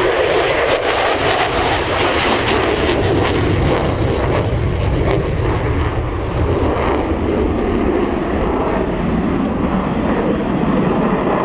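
Loud, steady roar of a jet aircraft.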